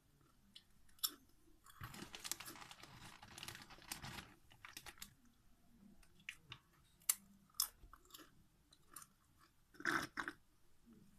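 Doritos tortilla chips crunched and chewed close to the microphone: a dense run of crunching between about two and four seconds in, then scattered single crunches and mouth clicks, with a louder crunch near the end.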